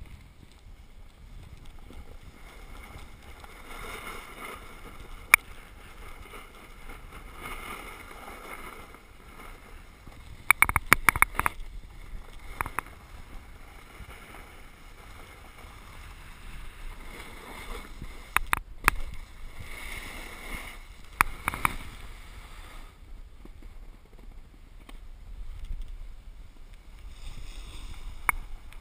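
Riding down packed snow: a continuous scraping hiss of edges sliding and carving over the snow that swells and fades with each turn. It is broken by sharp knocks and clacks: one about five seconds in, a quick cluster around eleven seconds, and more a few seconds later.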